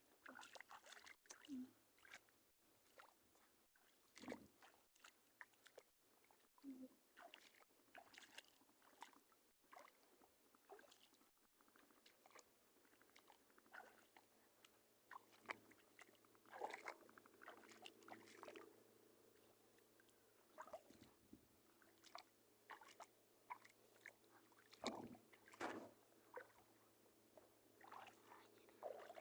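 Near silence with faint, scattered crackles and clicks, over a faint steady low hum.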